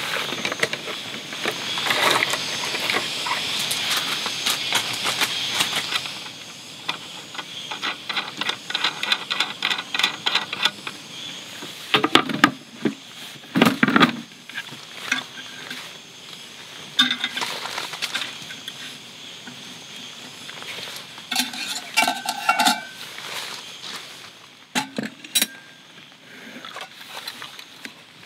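Camping gear being handled and set out on a table: rustling and wiping for the first few seconds, then a quick run of even clicks, two heavy knocks as a box is set down, and light clinks and clatter of metal cups and dishes later on.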